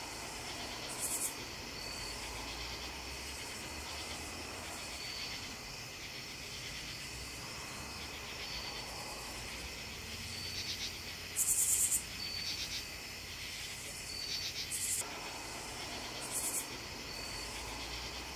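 Night chorus of crickets and other insects: a steady pulsing trill, broken a few times by short, higher, louder buzzes, the loudest about eleven seconds in.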